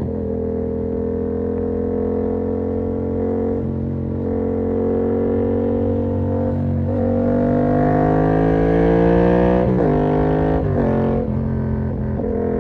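2019 Yamaha MT-07's parallel-twin engine running through an SC-Project exhaust with its dB-killer fitted, held at a steady speed. It then revs up for about three seconds and falls away sharply, with a couple of quick dips near the end as the throttle comes off.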